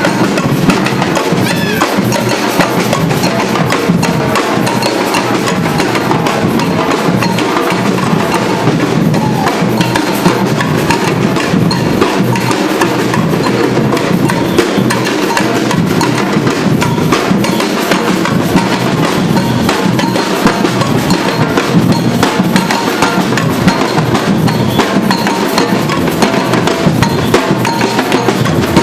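Batucada drum ensemble playing a continuous, dense rhythm on bass and snare drums.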